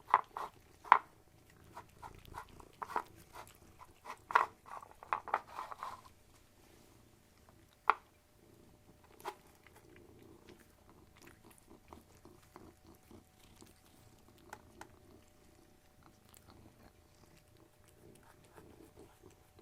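A cat chewing with crisp crunching clicks, many in the first six seconds, then a few scattered ones.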